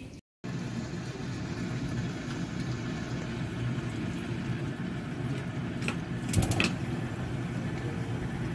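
A steady low mechanical hum, with a few light clinks about six seconds in.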